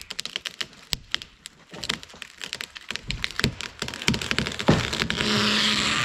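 Wood of a rotten dead tree cracking and splintering at its felling notch as the trunk gives way, the cracks coming faster and faster. A loud crack near the end is followed by a rushing noise as the tree starts to go over.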